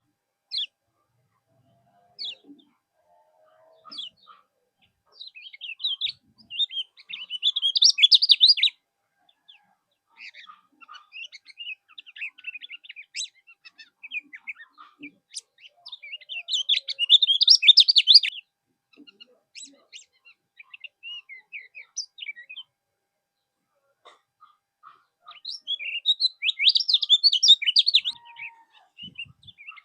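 A kecial kuning songbird singing: quick, high twittering phrases in bursts, with a few scattered single chirps between them. The three louder bursts come about a quarter in, just past halfway, and near the end.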